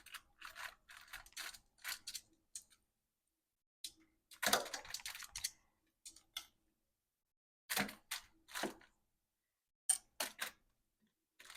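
Short clicks and scrapes of raw marinated chicken thighs being laid into an air fryer basket, in several bursts with pauses between, the longest about halfway through.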